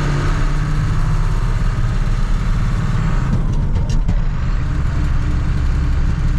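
A vehicle's engine running steadily, with a strong low rumble.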